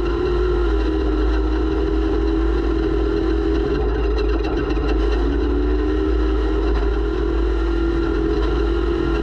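Off-road race vehicle's engine running hard and steady, heard from on board over a heavy low rumble, its pitch wavering a little as the throttle and speed change.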